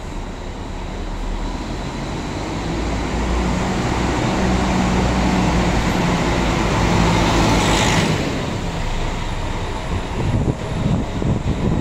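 Diesel coach engine running as the bus pulls away and drives past close by, growing louder to a peak about eight seconds in, with a short hiss at the peak, then falling away.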